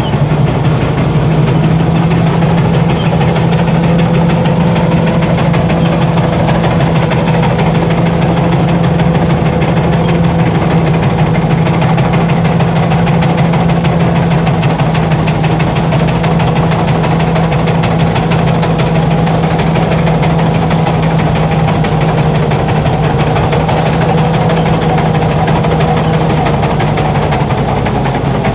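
Rice combine harvester's engine running steadily, a constant low drone with a fainter steady whine above it; it eases off slightly near the end.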